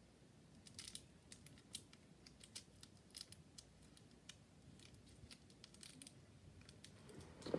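Near silence with faint, irregular light clicks from small toys being handled.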